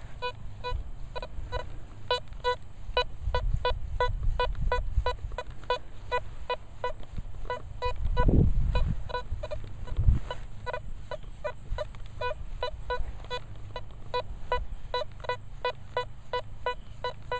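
Nokta Velox One metal detector sounding a run of short beeps at two pitches, about two to three a second, as the coil is swept back and forth over a target. It is not a very clean signal, the kind the detectorist reads as trash. A low rumble swells about eight seconds in, with a thump at about ten seconds.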